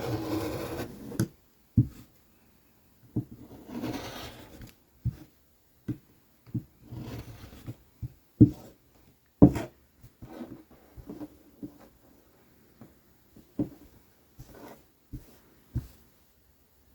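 Fabric rustling and a scatter of sharp, irregular knocks and clicks as cut cloth strips and cutting tools are handled and set down on a work table; the loudest knocks come about eight and nine seconds in.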